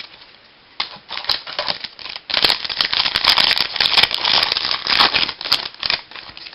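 Baseball trading cards and their pack handled: a few light clicks, then about three and a half seconds of dense rustling and crinkling that stops near the end.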